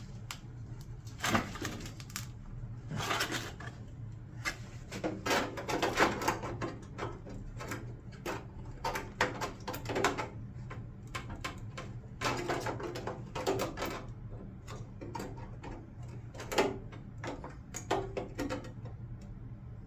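Irregular metallic taps and clanks as a small sheet-steel repair panel is bent and shaped by hand, over a steady low hum.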